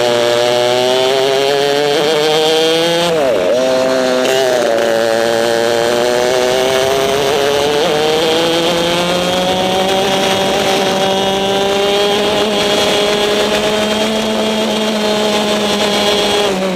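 Onboard sound of a 100cc two-stroke racing kart engine at high revs. Its pitch dips sharply about three seconds in as the throttle comes off for a corner, then climbs slowly and steadily through a long acceleration.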